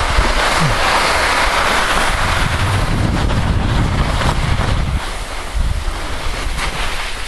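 Skis sliding and scraping over packed snow while skiing downhill, with wind rumbling on the microphone. The snow hiss is strongest in the first few seconds, then eases.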